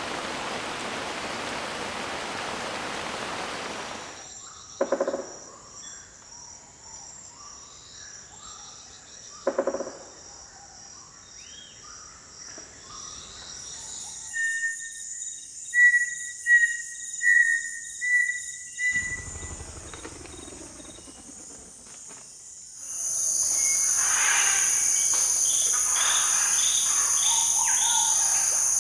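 Amazon rainforest soundscapes in succession: an even hiss of heavy rain for the first four seconds, then a steady high insect chorus with scattered bird calls and a run of short whistled bird notes midway. About two-thirds of the way through, a louder, denser insect chorus comes in with repeated bird calls over it.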